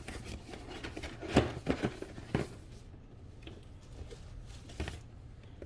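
Packaging being handled inside a box as its contents are taken out: rustling and scraping with several sharp knocks and taps, the loudest about a second and a half in, a few more soon after, and another near the end.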